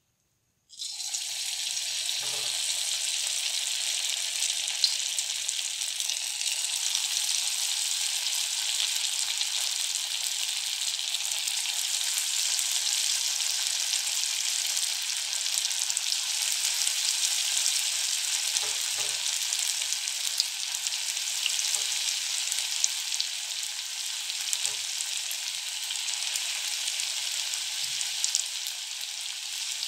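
Suji (semolina) batter pakoras deep-frying in hot oil in a kadhai. A steady sizzle starts suddenly about a second in, as the batter drops into the oil, and a few faint knocks sound through it.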